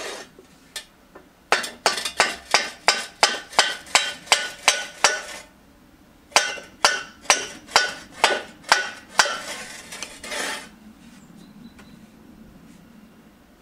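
Hammer blows with a metallic clink, fitting a steel shovel blade onto its wooden handle: a quick run of about a dozen strikes, roughly three a second, a pause, then about seven more.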